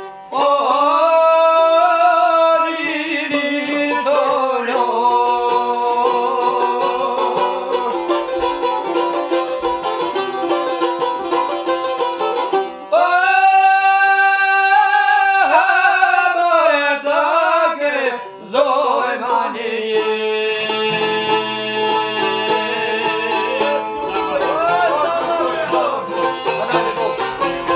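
Albanian folk singing: men's voices in long, ornamented phrases with held, wavering notes, accompanied by plucked long-necked lutes, the çifteli and sharki.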